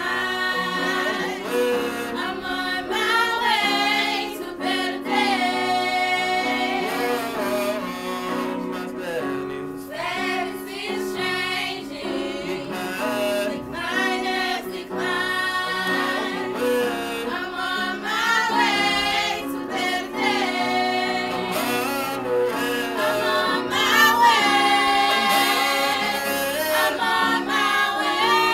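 Church teen choir of young women singing together in harmony, with voices holding notes and sliding between them.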